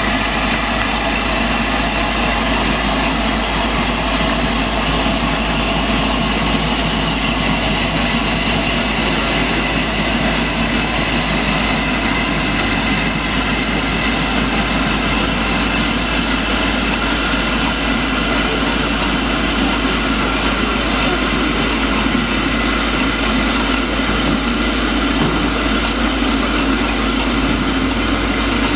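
Steam locomotive, an LMS Black 5, hissing steadily while standing on a turntable being turned, with a low rumble beneath.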